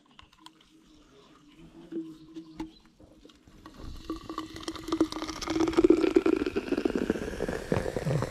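Lightly carbonated drink poured from an aluminium can into a plastic cycling water bottle, gurgling and fizzing. It starts about three and a half seconds in and grows louder, with a faint rising tone as the bottle fills.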